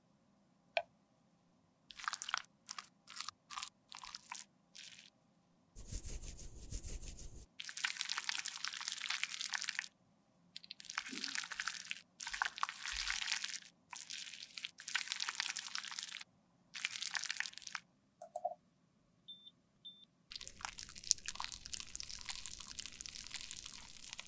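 A sharp click, then a run of dry crunching and scraping strokes on cosmetic product in a small metal makeup pan, in bursts of a second or two with short pauses between them.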